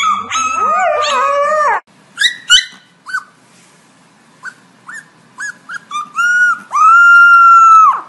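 An adult husky and a husky puppy howl-talking together in overlapping warbling woos for about two seconds. Then a small black puppy gives a string of short high yips, ending in one long high-pitched howl held for over a second near the end.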